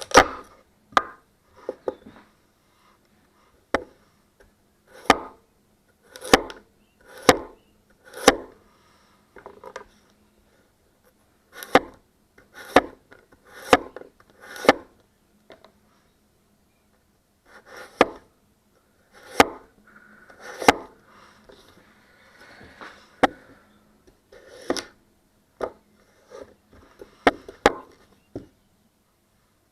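A 240 mm damascus gyuto chef knife cutting through food and striking the cutting board: a series of sharp knocks, about one a second, with a few short pauses.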